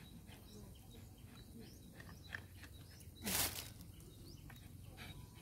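Quiet outdoor ambience with faint, scattered bird chirps, and one short, loud burst of hissing noise about three seconds in.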